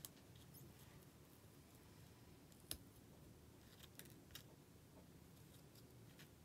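Near silence with a few faint clicks and taps of a tiny knife chopping on a miniature wooden cutting board, one sharper click near the middle.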